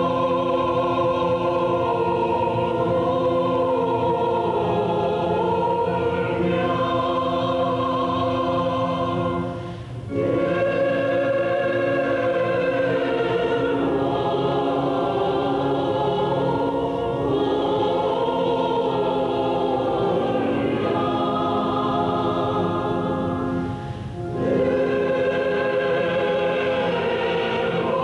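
A choir singing slow, sustained phrases over a held low note, with short breaks between phrases about ten seconds in and again about twenty-four seconds in.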